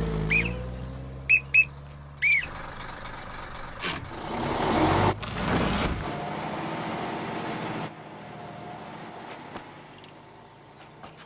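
Film soundtrack: a truck engine running, then pulling away, with a few short squeaky chirps in the first couple of seconds. A rush of noise follows that swells about halfway through, then drops away.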